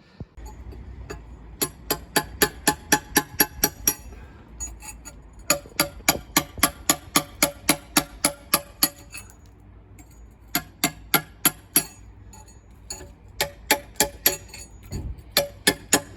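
Background music with a quick, regular plucked beat over a steady bass.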